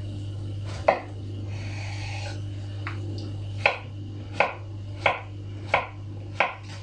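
Chef's knife chopping courgette on a wooden cutting board. One cut about a second in, then a run of five evenly spaced cuts, about one every two-thirds of a second, over a steady low hum.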